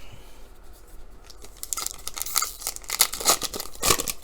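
Trading-card packaging being torn open and crinkled: quiet at first, then a run of sharp crackling tears and rustles through the second half.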